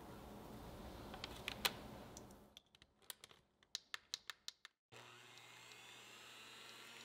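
A few sharp clicks and taps. Then, about five seconds in, an electric hand mixer starts abruptly and runs steadily, whipping eggs and sugar in a glass bowl.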